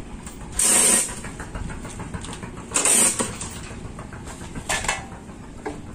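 Chain hoist chain rattling in three short, loud bursts about two seconds apart as a heavy diesel engine hanging from it is hoisted and shifted, over a low steady rumble.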